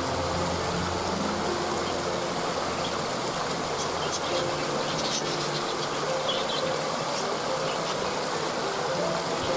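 Steady rushing of a waterfall, with soft background music of slow held low notes. A bird chirps several times, in short high calls, in the middle.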